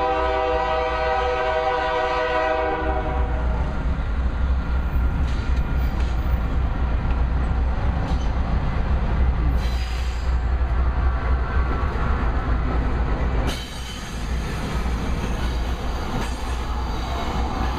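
A freight train's diesel locomotive air horn sounds a chord of several notes that fades out about three seconds in. It is followed by the steady low rumble of the approaching diesel locomotives and the clatter of the freight cars' wheels on the rails as the train passes, with an abrupt change in the sound about thirteen seconds in.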